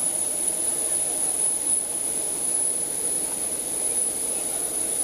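Jet aircraft running on the apron: a steady high-pitched whine over an even rumble, without change.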